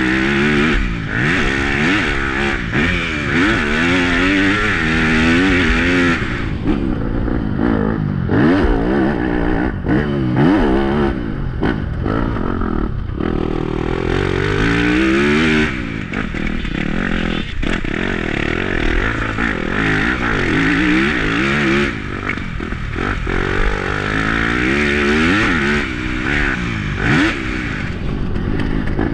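Yamaha YZ250F four-stroke single-cylinder motocross bike being ridden hard, its engine revving up and dropping back again and again as the rider accelerates and shifts.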